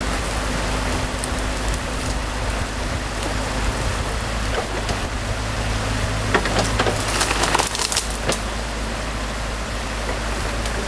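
Stream water rushing and splashing through gaps in a beaver dam, over the low steady hum of an idling excavator engine. About six to eight seconds in comes a cluster of sharp crackles and snaps, like sticks breaking.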